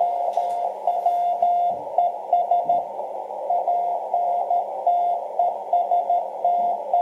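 Morse code (CW) received on a shortwave transceiver on 10 MHz: a single tone of about 700 Hz keyed in dots and dashes, over steady hiss from the receiver's narrow CW filter. It is the other station's signal being copied during a QSO.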